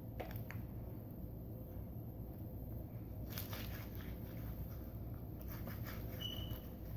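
Homemade slime being squeezed and stretched by hand, giving faint crackling and clicking in two short spells, with a brief high-pitched squeak near the end, over a steady low hum.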